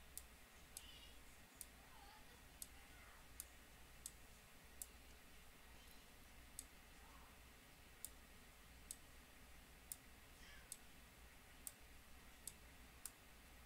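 Computer mouse clicking about once a second at uneven intervals, over quiet room tone with a faint low hum.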